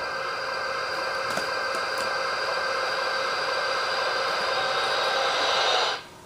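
Action-film trailer soundtrack playing through a TV: a steady rushing noise that grows slightly louder, then cuts off abruptly near the end.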